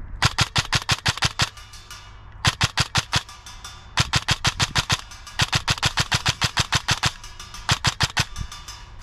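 Custom-built ICS airsoft electric rifle (AEG), tuned to about 37 BBs a second, firing five rapid full-auto bursts with the gearbox cycling fast. The bursts last from about half a second to a second and a half, with short pauses between them.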